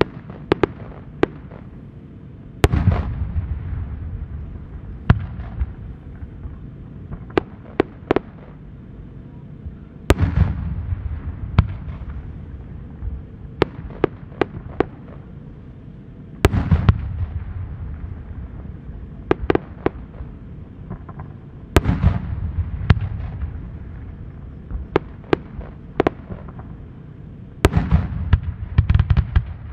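Aerial firework shells bursting: five deep booms with long rolling echoes, roughly every five to six seconds, and many short sharp cracks scattered between them.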